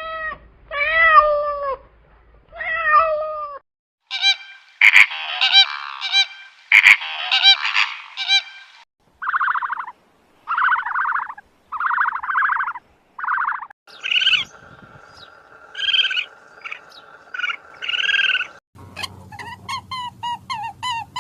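A run of different animal calls, one after another: a cat meowing three times, then several other animals' calls, ending in fast repeated chirps.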